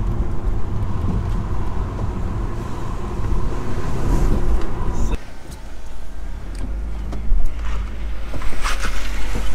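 Audi S3's turbocharged four-cylinder engine running while the car drives, heard from inside the cabin with road noise. About five seconds in the engine note drops suddenly to a quieter low hum. A few brief knocks and rustles come near the end.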